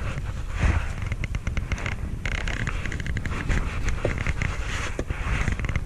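Baitcasting fishing reel being cranked while jigging: a run of fast clicks and crackle over a steady low rumble.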